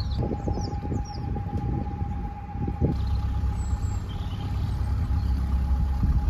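Narrowboat engine running steadily as the boat cruises, a low rumble with a thin steady hum above it that fades out partway through. A few short bird chirps sound in the first second.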